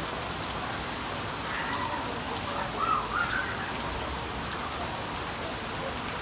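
Steady rain falling and pattering on surfaces, an even, unbroken hiss. Around the middle, a brief faint wavering voice-like sound rises over it.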